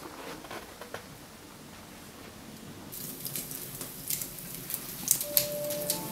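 Rain starting to patter, a hiss with many sharp drop ticks that sets in about halfway through. A soft sustained music note comes in near the end.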